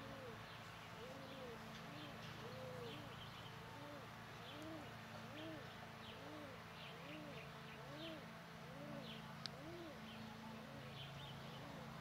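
Pigeon cooing: a long run of short soft coos, each rising and falling in pitch, repeating about one and a half times a second. Faint chirps of small birds are heard above.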